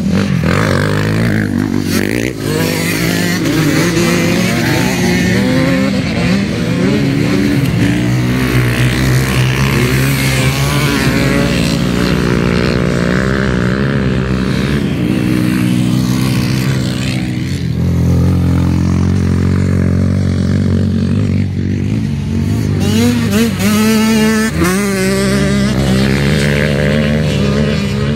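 Several off-road dirt bike engines racing on a dirt course, revving up and down through the gears as the bikes pass, their pitches overlapping and rising and falling.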